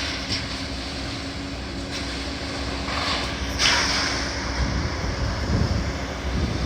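Heavy demolition machine's engine running steadily, with a few louder surges of debris noise about two to four seconds in. Wind buffets the microphone throughout.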